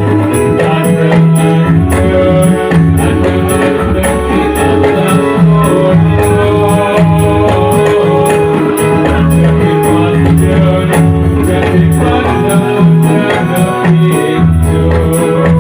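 Ndolalak dance music in an instrumental stretch between sung verses: tambourine jingles keep a steady, even beat over low drum strokes and held melody tones.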